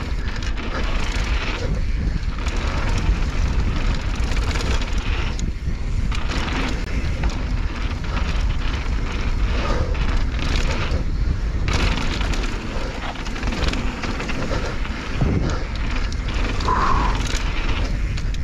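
Mountain bike rolling fast down a dirt and gravel trail, heard from a handlebar-mounted camera: a steady low wind rumble on the microphone over tyre noise, with frequent clicks and rattles from the bike.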